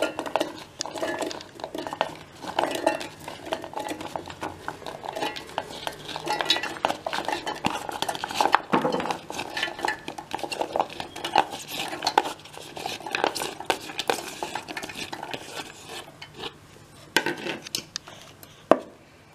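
Chopped raw carrot pieces tumbling from a plastic bowl into a stainless steel mixer-grinder jar: an irregular run of light knocks and clatters against the metal. The clatter thins out, and there are a few sharper knocks near the end.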